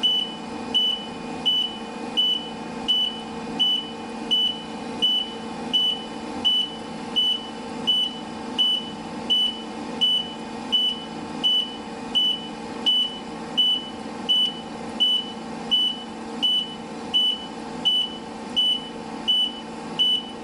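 Truck reversing alarm beeping: one high-pitched tone repeating evenly, about three beeps every two seconds, over a steady hum.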